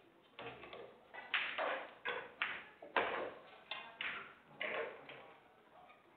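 Pool balls clacking in a large hall: a cue strike and ball-on-ball knocks, about a dozen sharp clicks over five seconds.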